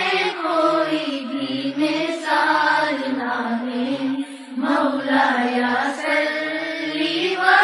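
A naat, an Islamic devotional hymn, sung in a chant-like melody with long held, gliding notes.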